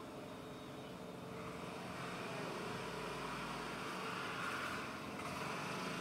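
Faint steady outdoor background noise with a low hum, swelling for a few seconds from about a second and a half in and easing off near the end, as from distant traffic.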